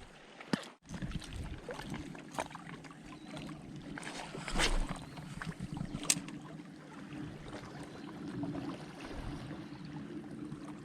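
Seawater washing at the shore and wind on the microphone, with a steady low hum and a few sharp clicks; the sound briefly drops out just under a second in.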